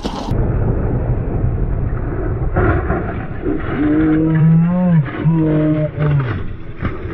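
Slow-motion replay audio of a motorcycle crash: a low rumble of engine and wind noise, and from about four seconds in a deep, drawn-out wavering howl, a voice stretched and lowered by the slowed playback.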